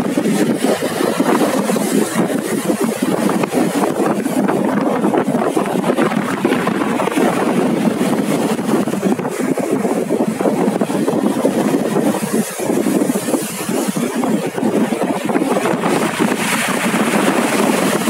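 Sea surf breaking and washing up over a pebble beach: a loud, steady rush of water, with a brighter hiss of foam near the end.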